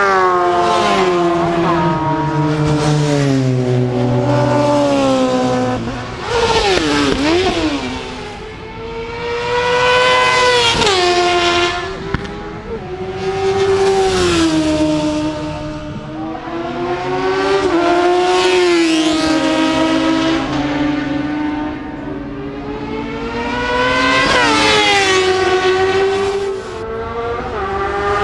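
Sport motorcycles on a racetrack passing one after another at high revs. Each engine note climbs in pitch as a bike comes close and drops as it goes by, swelling and fading in turn about every six to eight seconds, so that engine noise never stops.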